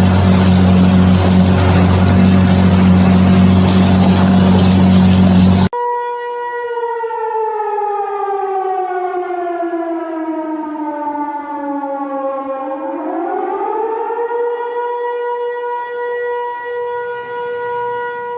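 A loud steady rumble, then an abrupt cut about six seconds in to a warning siren. The siren holds one tone, slowly falls in pitch over about seven seconds, swoops back up and holds steady again.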